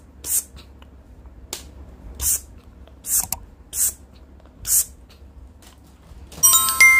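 A run of short, high hisses about a second apart, then near the end a bright chime with several ringing tones: a notification-bell sound effect.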